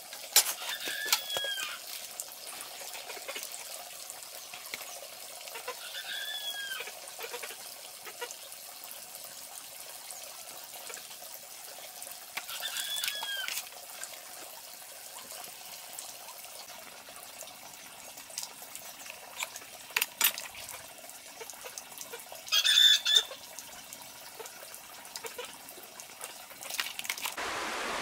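Farmyard chickens calling: three short rising-and-falling chirps several seconds apart over a faint steady background. Scattered light clicks and knocks come from hands at work, and there is one brief loud rustling noise about three-quarters of the way through.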